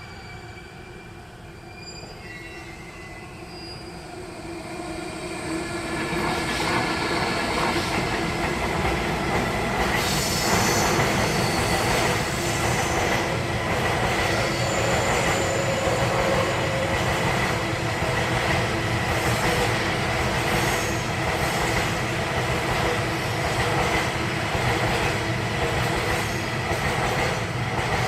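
A train approaching and passing close by, growing louder over the first several seconds and then staying loud. Its wheels click regularly over the rail joints and carry a steady high squeal.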